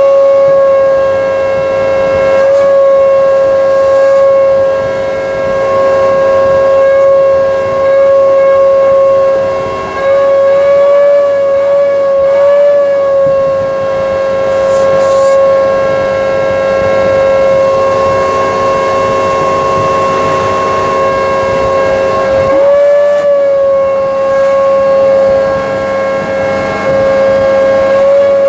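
Hoover Breeze upright vacuum cleaner running, its motor giving a loud, steady high whine; the pitch wavers briefly a few times as the load on the motor changes.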